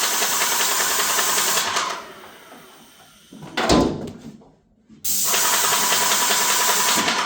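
Graco 390 airless paint sprayer running, its pump chattering fast under a high spray hiss. It stops about two seconds in, a short loud low thump comes a second and a half later, and the sprayer starts again about five seconds in.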